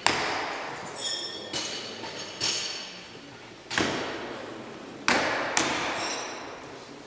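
Throwing knives striking wooden targets: seven sharp hits at irregular intervals, each echoing through a large hall, several followed by a brief metallic ring.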